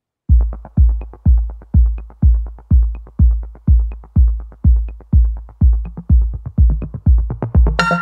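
Background electronic dance music: a steady kick drum about twice a second, starting after a brief gap, with synth layers coming in just before the end.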